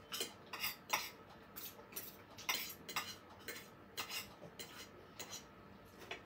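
Spoon and fork clinking and scraping against a ceramic dinner plate while eating: a loose, irregular series of light clinks, about two a second.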